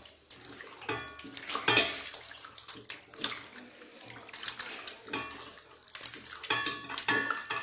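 A hand squeezing and mashing raw chicken pieces with mustard oil, salt and turmeric in a steel bowl: wet squishing in irregular strokes as the chicken is worked into its marinade.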